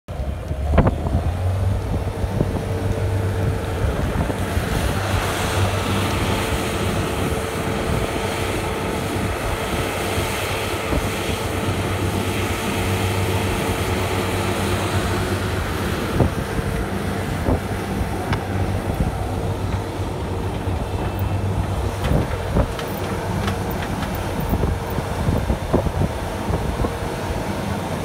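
Skid steer loader's engine running steadily as the machine drives the course, with a few knocks and wind on the microphone.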